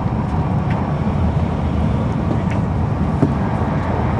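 Steady low rumble of a 300 series Shinkansen train running, heard inside the passenger car, with a few faint clicks.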